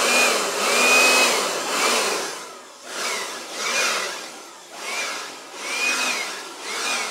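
KIMO handheld electric blower worked on its variable-speed trigger: its motor whine and rush of air swell up and fall back about seven times as the trigger is squeezed and eased off, with the air blowing sawdust across the floor.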